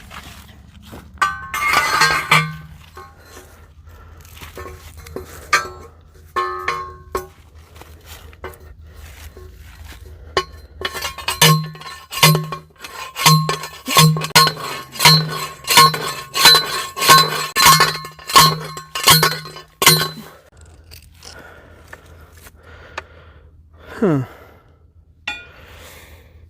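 Steel T-post being pounded into the ground with a post driver: one ringing strike near the start, then a steady run of about a dozen clanging blows, roughly one and a half a second, that stops about three-quarters of the way through.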